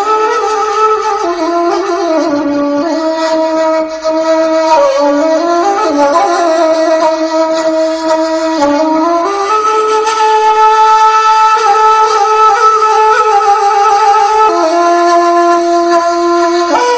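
Background music: a wind instrument playing a slow melody of long held notes that step up and down in pitch.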